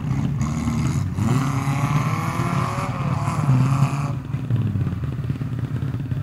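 Engine of a small 4x4 off-road vehicle running under load. Its revs rise and fall, giving a higher wavering note for the first few seconds that drops away about four seconds in, over a steady low drone.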